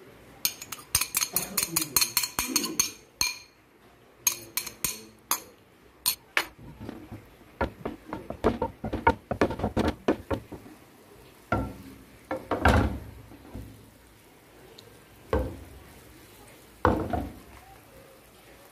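A metal fork clinks rapidly against a glass bowl as beaten egg is scraped out into a frying pan. Then a utensil scrapes and stirs the egg against the nonstick pan in short strokes, with a few louder knocks.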